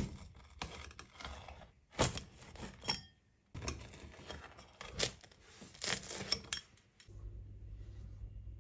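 Pizza wheel cutter rolling through a charred pizza crust against a wooden board: crunchy crackling and scraping in two runs of strokes with a brief pause between. About seven seconds in, this gives way to a low steady hum.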